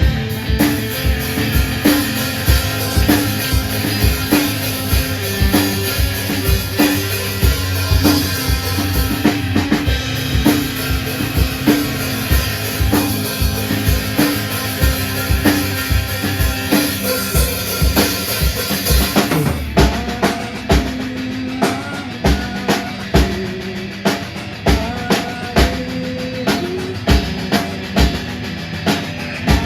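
Rock band playing, with the drum kit to the fore: a steady kick-and-snare beat under a dense wash of cymbals. About twenty seconds in the cymbal wash drops away, and the drums and pitched instruments carry on more sparsely.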